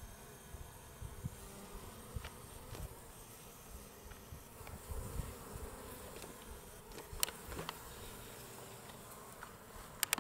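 Honeybees buzzing as they fly in and out of a top-bar hive entrance, a steady hum with low rumble beneath. A few sharp clicks stand out about seven seconds in and again at the very end.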